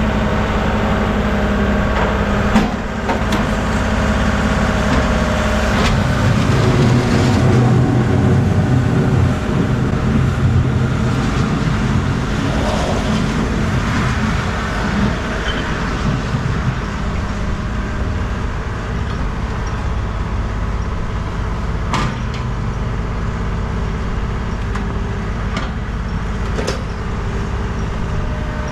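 Tractor engine running steadily, working harder for a few seconds near the start, with a few sharp clanks.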